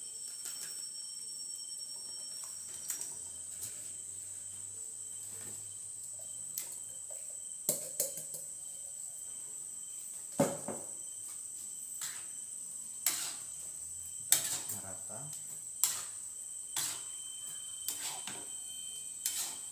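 A metal spoon scrapes and knocks against an aluminium rice-cooker pot and a wok as cooked rice is scooped in and stirred, giving a dozen or so sharp clinks spread through, the loudest about halfway. Behind it runs a steady high-pitched drone, like insects chirring.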